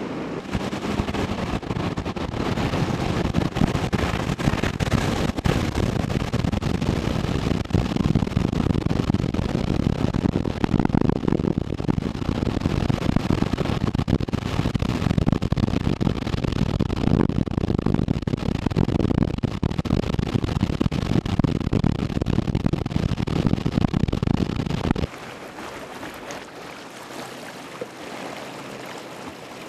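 Rushing floodwater with wind buffeting the microphone, a loud, steady rush heaviest in the low end. About 25 seconds in it cuts suddenly to a quieter rush of muddy water running along a roadside ditch.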